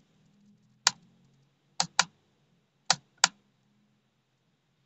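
Five sharp clicks at uneven intervals, two of them coming in quick pairs, like keys being pressed, over a faint low hum.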